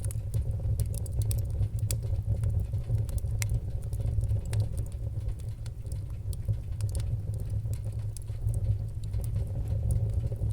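Fire crackling in a fireplace: irregular sharp pops and snaps, several a second, over a steady low rumble of the flames.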